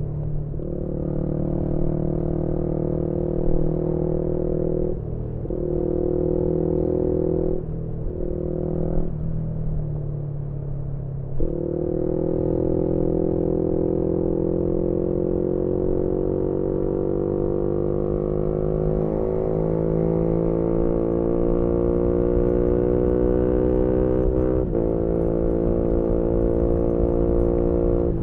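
Yamaha MT-125 single-cylinder four-stroke engine through an aftermarket GPR exhaust, ridden hard: several quick gear changes break the engine note in the first half, then it pulls through one long slow rise in pitch before another shift near the end.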